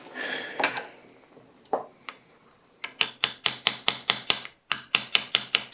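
Rapid light hammer taps on a brass punch, drifting a sight into a pistol slide's dovetail. About five taps a second begin a little under halfway through, with a short pause partway along.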